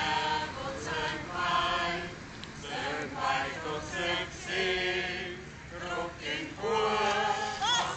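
Mixed church choir of men and women singing together in phrases. Near the end one voice gives a brief rising high-pitched call.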